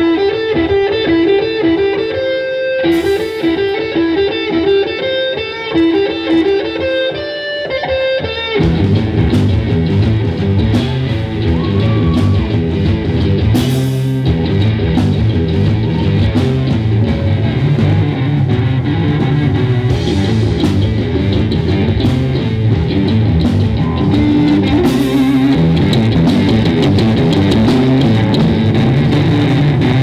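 Live rock band: an electric guitar plays a melodic line nearly alone, then about nine seconds in the bass and drums come in and the full band plays on.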